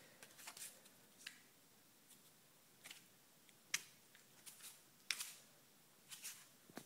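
Homemade cardboard flip knife flipped open and shut in the hand: about half a dozen faint clicks and soft taps at uneven intervals as the cardboard blade swings on its toothpick pivot.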